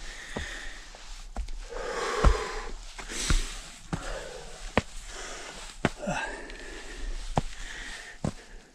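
A hiker breathing hard on a steep climb, with loud exhales every few seconds and sharp footstep or hand taps about once a second.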